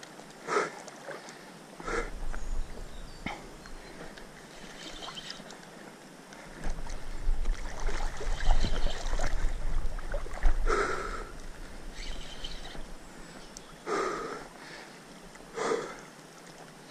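Wind buffeting the microphone, with a heavy low rumble for several seconds in the middle, over the wash of river water. A few short louder sounds stand out, about five in all.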